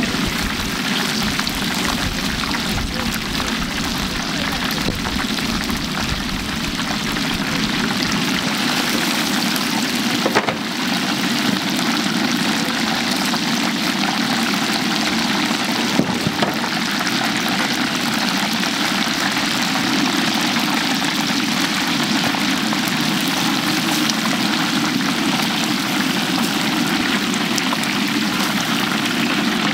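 Chicken deep-frying in a large cauldron of oil: a steady sizzling hiss with a low hum beneath it, and two brief clicks, about ten and sixteen seconds in.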